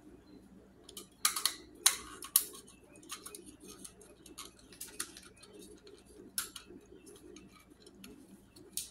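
Light clicks and knocks of small plastic doll parts being handled and fitted, about five of them spread out, over a steady low background sound.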